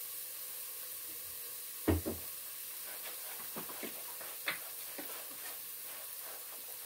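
Chopped onions sizzling softly in a saucepan, the heat turned down so they soften without caramelizing. A few light clinks and knocks, the loudest about two seconds in.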